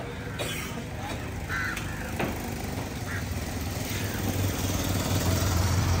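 A low, steady engine hum that grows louder over the last few seconds, with a few faint voices and clicks.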